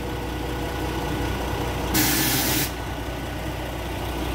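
Mobile crane truck's diesel engine idling steadily, with a short sharp hiss of released air about two seconds in.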